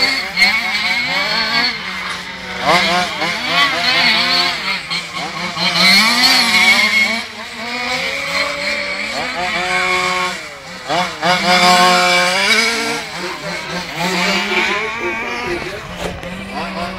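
Several radio-controlled model cars running laps together, their small motors repeatedly rising and falling in pitch as they accelerate out of corners and back off, over a steady low drone.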